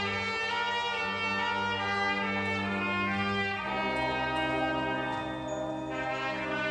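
Elementary school marching band's brass playing held chords, changing to a new chord about three and a half seconds in.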